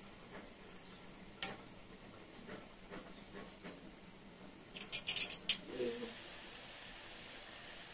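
Sweet potato cakes deep-frying in a wok of oil: a faint sizzle with metal tongs clicking against the pan, and a quick run of sharp clicks about five seconds in. After that the frying settles into an even, steady hiss.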